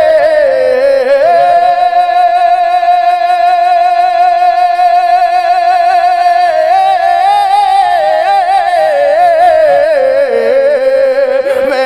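A man's solo voice singing an Urdu devotional kalam (naat). He holds one long note for about five seconds, then bends it upward and slides it down in a drawn-out melisma.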